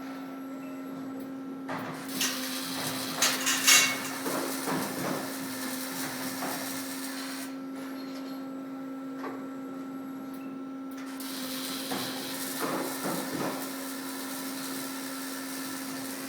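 Robotic MIG welding arc on a Fronius power source set for spatter-free welding, hissing and crackling in two runs. The first run is loudest a few seconds in and stops about halfway, and the second starts again a few seconds later. A steady machine hum runs underneath.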